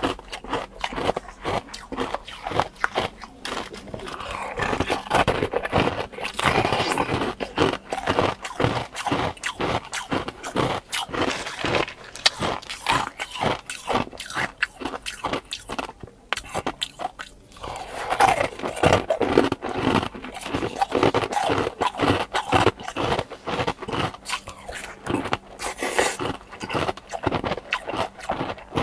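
Close-up biting, crunching and chewing of ice cubes eaten with soft-serve ice cream, many sharp crunches in quick, irregular succession with a short pause a little past halfway.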